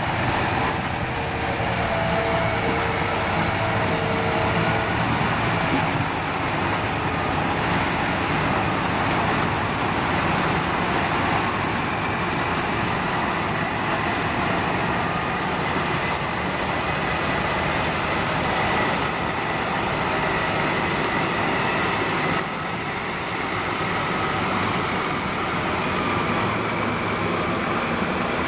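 Diesel engines of a John Deere 7450i forage harvester chopping maize and a John Deere 7250R tractor running steadily under load, with a faint high whine, as the tractor pulls a full silage trailer away.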